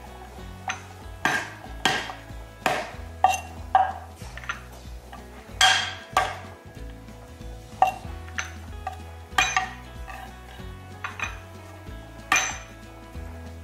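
Cleaver chopping garlic cloves on a wooden cutting board: irregular sharp knocks of the blade on the board, singly and in quick pairs, with short pauses between.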